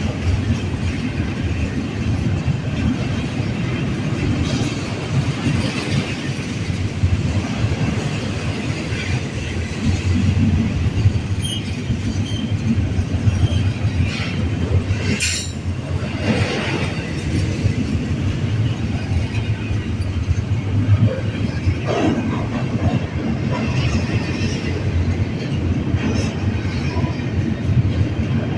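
Freight train cars rolling past with a steady low rumble of wheels on rail, with scattered clicks and a sharp impact about fifteen seconds in.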